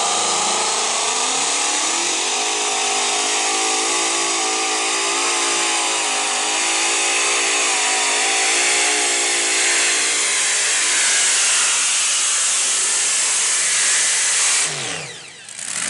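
Mini-unlimited pulling tractor's supercharged engine running flat out through a pull, a loud steady howl with its pitch wavering slightly. Near the end the pitch falls and the sound drops away as the throttle comes off.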